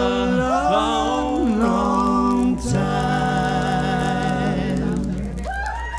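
Small live band's closing bars: several voices sing in harmony over guitar and keyboard, ending on a long held chord that fades away near the end.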